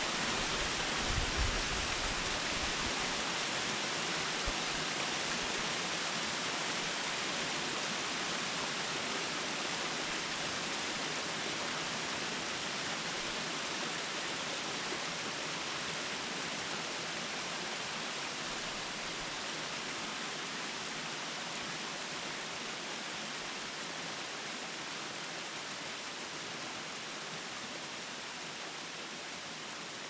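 Kiyomizu Falls, a tall, narrow waterfall, giving a steady, even rush of falling water that slowly grows a little quieter. There are a couple of soft low bumps in the first few seconds.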